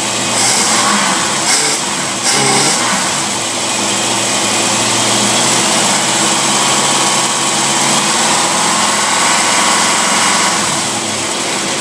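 Test engine running on a worn Rochester two-barrel marine carburetor, its speed shifting up and down in the first few seconds, then running steadily. The carburetor has a bad flat-spot hesitation and runs way lean, as the tester judges it.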